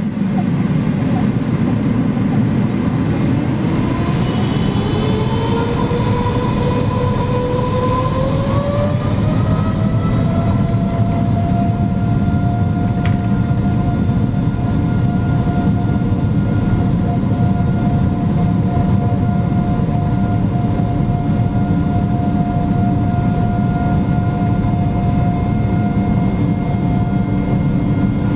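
Boeing 777-300ER's GE90 engines spooling up to takeoff thrust: a whine climbs in pitch from about three seconds in, then holds steady at a high note over a loud, continuous rumble through the takeoff roll.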